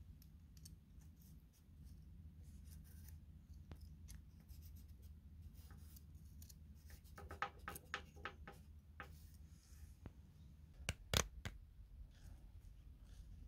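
Light metallic clicks and scrapes of a feeler gauge blade being worked between a lawnmower engine's valve stems and tappets while checking valve clearance. There is a run of quick clicks past the middle and one sharper metallic click near the end.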